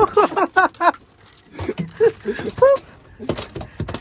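A quick string of short, pitched squeaks in the first second and two more midway. Then, in the last second, a landed mahi-mahi thrashing on the fibreglass boat deck, its tail slapping in rapid knocks.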